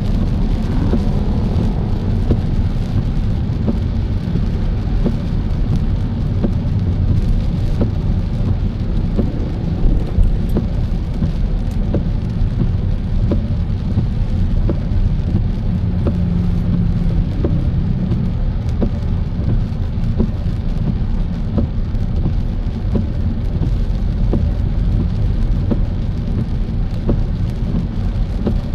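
Rain falling on a car as it is driven: a steady low road rumble with scattered ticks of raindrops striking the car.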